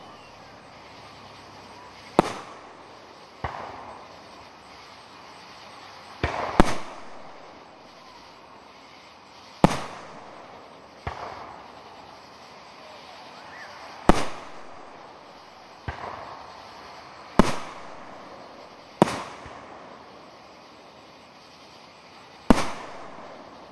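Aerial fireworks shells bursting: about eleven sharp bangs at irregular gaps of one to three seconds, each followed by a short echoing tail.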